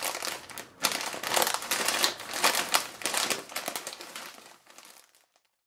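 Crinkly plastic being handled and crumpled close to the microphone: a dense run of crackles and rustles that fades away about a second before the end.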